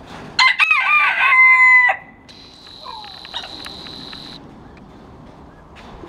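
A rooster crowing once: a loud cock-a-doodle-doo about a second and a half long, ending on a long held note.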